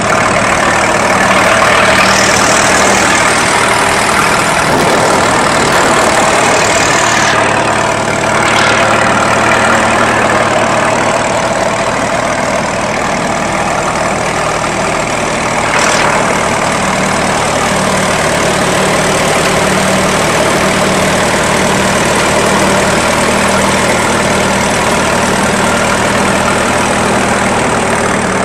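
1952 Case LA tractor's four-cylinder engine running steadily under belt load, driving a 1939 Case threshing machine through a long flat belt. The working thresher adds a steady rattling hiss.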